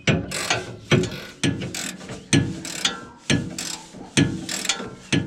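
A ratcheting wrench is being worked back and forth to tighten a sway bar end link nut. Each stroke gives a quick run of ratchet clicks, about once a second.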